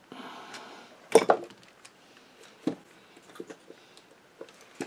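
Handling noise as the sewing machine motor's housing and screwdrivers are picked up and moved on the workbench: a brief rustle, a sharp clatter about a second in, then several light knocks and clicks.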